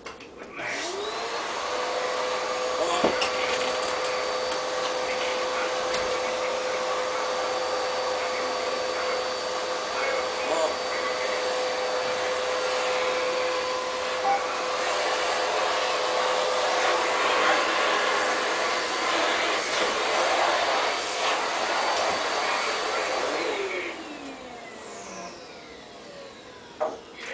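Household vacuum cleaner switched on just after the start, its motor whine rising to a steady pitch and running evenly for about twenty seconds, then switched off near the end, the whine falling as the motor spins down.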